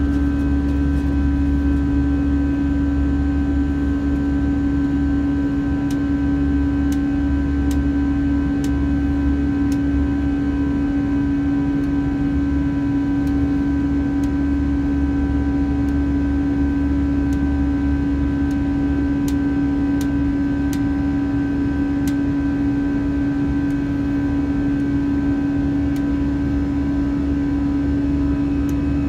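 Airbus A320's jet engines heard from inside the cabin during the climb after takeoff: a steady drone with a strong low hum, fainter higher tones above it and a low rumble.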